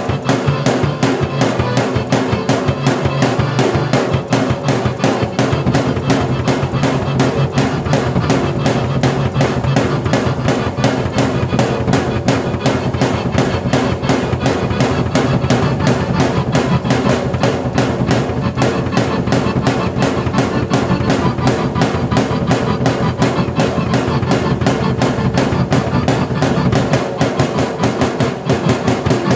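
Drum kit and keyboard played together in a continuous piece, with a steady, driving beat of kick and snare under keyboard chords and melody.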